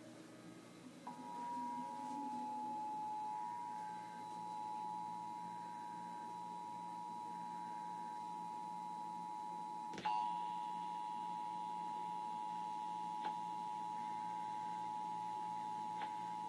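Emergency Alert System attention signal: the steady two-tone alarm of 853 Hz and 960 Hz sounded together. It starts about a second in and holds unchanged, broken only by a short click about ten seconds in. It is the tone that heralds an emergency alert, here sent for a national test.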